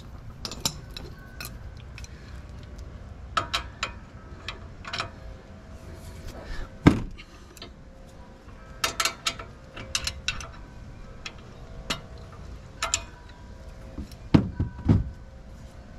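Scattered metallic clinks and knocks of a 19 mm socket and breaker bar against the caliper bracket bolts as they are tightened down, some clinks ringing briefly. There is a louder knock about seven seconds in and two more near the end.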